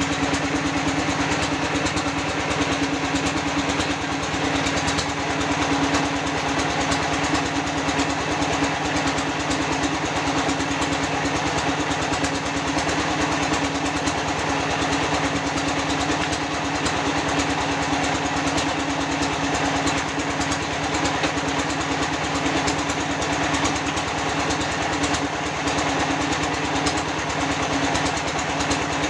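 Small engine of concrete-block-making machinery running steadily at an even speed, with a constant hum and a fast, even pulsing.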